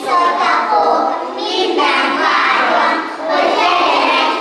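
A group of young children singing together in unison, in phrases with short breaks between them.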